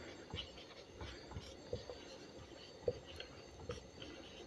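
Marker pen writing on a whiteboard: faint, short strokes and taps of the tip.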